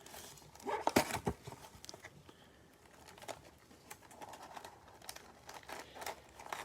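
Cardboard trading-card retail box being handled and opened: a few sharp clicks and crackles about a second in, then light scattered taps and rustles.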